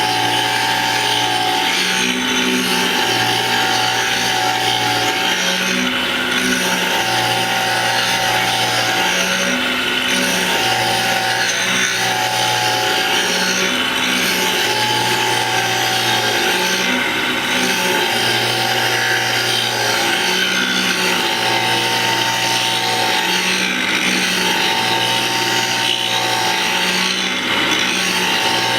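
A cutter-sharpening grinder running its abrasive wheel against a cutter, with a steady grinding hiss and a heavier tone that comes and goes every few seconds as each pass is made.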